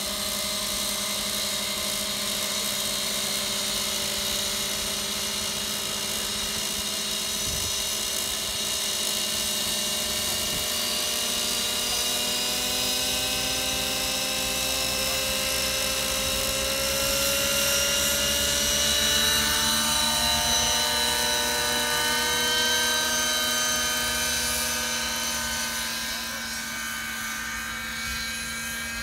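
Several radio-controlled model helicopters with smoking nitro engines running together as a high whine. Their pitch climbs through the middle as they spool up and lift off, loudest a little past halfway, then eases slightly as they fly away.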